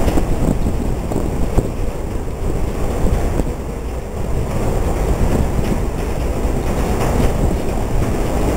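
Steady low rumble of the M/V Kaleetan, a Washington State Ferries car ferry, with wind buffeting the microphone and a few sharp knocks.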